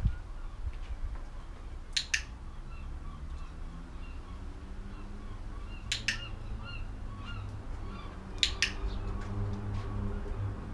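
A dog-training clicker sounds three times, about two, six and eight and a half seconds in, each a quick double click, marking the moment the dog's nose touches the hand. Faint bird chirps run in the background, and a low steady hum builds from about three seconds in.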